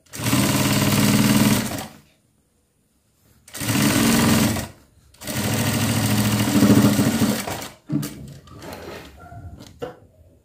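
Industrial sewing machine stitching a seam through cotton fabric in three runs, about two, one and a half, and two and a half seconds long, with short pauses between them. Softer handling noises follow near the end.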